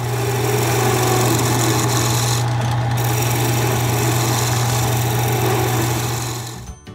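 Craftsman wood lathe running with a steady motor hum while a gouge cuts a spinning maple blank, giving a continuous hiss of wood being shaved. The cutting hiss drops out briefly about two and a half seconds in, and the whole sound fades out near the end.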